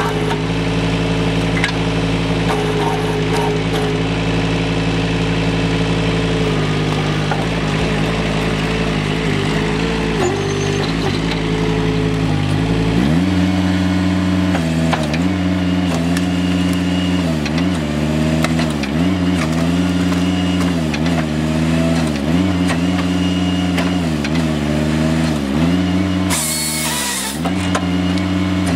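Engine of a small Kranman forestry machine powering the hydraulics of its log processor: running steadily, then revved up about halfway through, its pitch dipping every second or two as the hydraulics take load feeding the log. Near the end, a harsh noise about a second long as the processor's saw cuts through the log.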